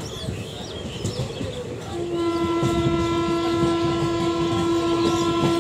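Moving passenger train's wheels rumbling on the rails, then about two seconds in a train horn sounds one long steady note that lasts nearly four seconds.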